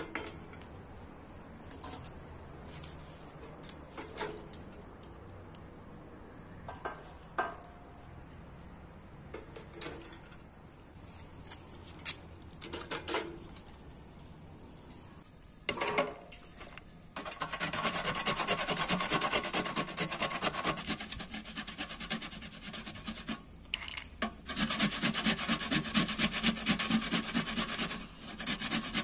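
Walnuts being grated by hand on a stainless steel box grater: rapid rasping strokes that start about halfway through and run in two long spells with a short break. Before that there are only a few scattered light clinks of metal tongs and charcoal at a brass samovar.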